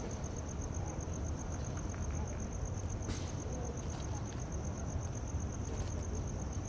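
A cricket chirping in a rapid, even pulse, over a steady low rumble of idling emergency vehicles.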